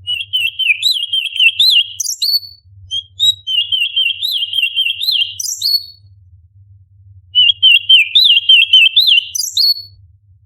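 Orange-bellied leafbird singing: three phrases of rapid, high chattering notes, each ending in a sharp rising whistle, with short pauses between.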